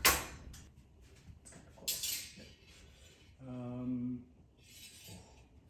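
Two steel rapier blades meet in a single sharp clink right at the start, with a brief ringing trail, followed by faint handling and shuffling sounds. A bit past the midpoint a low voice hums one steady note for under a second.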